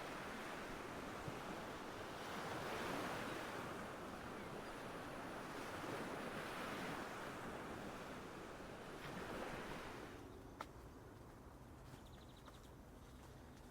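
Surf washing ashore in swells every few seconds. About ten seconds in it cuts off to a much quieter background with a few sharp clicks.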